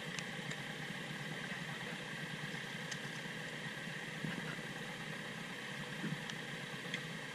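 Off-road vehicle engine running steadily at low revs as it crawls along a muddy track.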